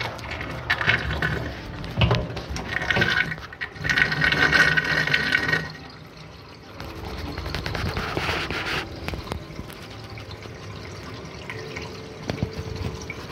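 Sink water draining through a whirlpool vortex into a stainless steel drain, heard underwater through a plastic-wrapped camera: uneven surges of rushing water for about the first half, then quieter and steadier.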